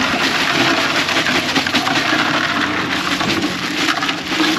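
Ice cubes being shaken out of a plastic bag into a plastic bucket: a dense, continuous rattle and crunch of ice with crinkling plastic.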